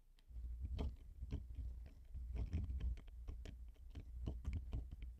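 Mate DynoGrip self-centering vise's lead screw being turned clockwise with a 12mm speed wrench, closing the jaws onto the calibration pins: an irregular run of clicks, about four a second, over a low rumble.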